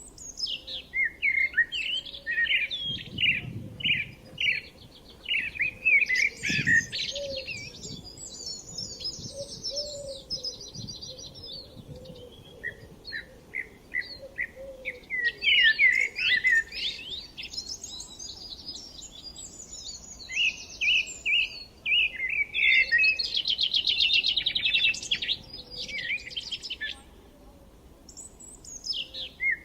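Several songbirds singing and chirping at once, with quick repeated chirps and fast buzzy trills overlapping. There is a short lull near the end before the song resumes.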